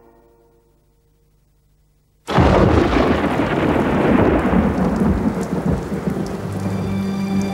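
Brass music dies away to near silence. About two seconds in, a sudden loud clap of thunder breaks and rolls on into steady heavy rain. Faint music comes back under the rain near the end.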